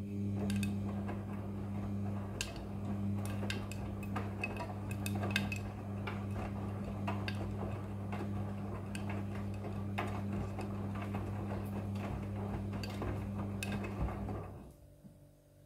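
Front-loading washing machine drum turning a load of clothes: a steady motor hum with a clatter of clinks and ticks as buttons and zips knock against the steel drum, stopping near the end as the drum pauses.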